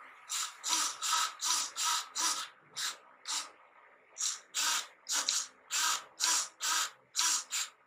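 Small hobby servo whirring in short bursts, about eighteen of them, as it swings the airboat's rudder back and forth under joystick control, with a brief pause a little past the middle.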